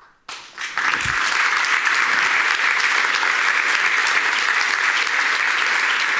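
Audience applause, starting within the first second and quickly building to steady clapping.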